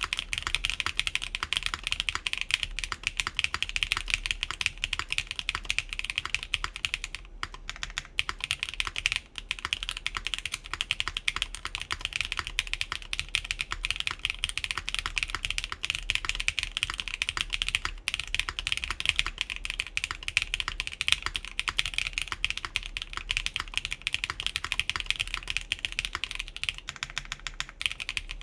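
Continuous typing on an Atelier Magnus Slate Zero mechanical keyboard with factory-lubed Keygeek Blue Cheese v2 switches, a full aluminum plate and DSA keycaps, built without its case and plate foam. Key strikes come in a dense, steady stream, with brief pauses about seven and nine seconds in.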